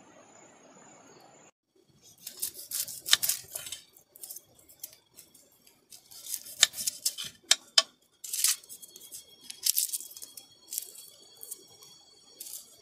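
Knife peeling and cutting a small red onion on a wooden board: irregular sharp clicks and short crackling strokes of the blade through the dry skin and against the board. A faint steady hiss with a thin high tone comes before it, stopping about a second and a half in.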